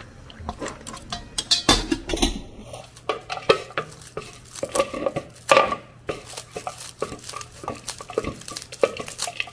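Chopsticks and a stainless lid clinking against a stainless steel pot of seafood, then kitchen scissors snipping dried pollack strips into a glass bowl: a run of short, crisp cuts and clicks. A low steady hum sits underneath from about three seconds in.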